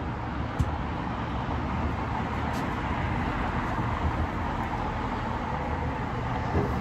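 Steady low outdoor rumble and hiss, with one short click about half a second in.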